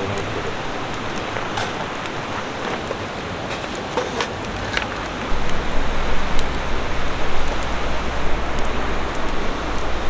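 Mountain stream rushing steadily, with a few sharp clicks and ticks over it. A low rumble joins about five seconds in.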